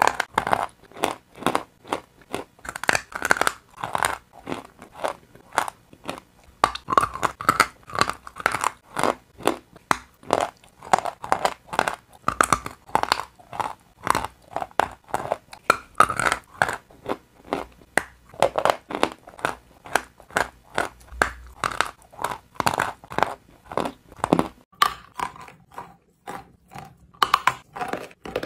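Close, crisp crunching of edible chalk being bitten and chewed, quick crunches about three a second.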